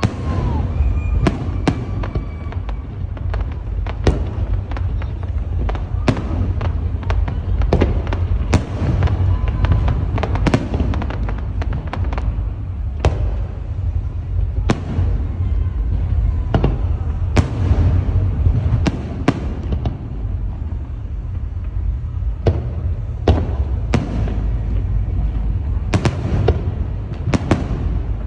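Aerial fireworks shells bursting overhead: a steady run of sharp bangs, several every couple of seconds, over a continuous low rumble of booms echoing across the water.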